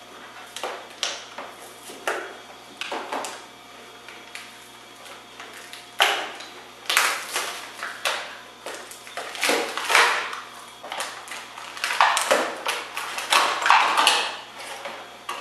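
Cardboard-backed clear plastic blister pack being torn open by hand: irregular crinkling, crackling and ripping of plastic and card, sparse at first and busier and louder from about halfway through.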